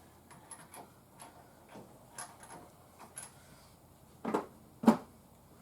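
Light metallic clicks and taps of lug nuts and a socket being worked by hand on a wheel, with two louder knocks about four and five seconds in.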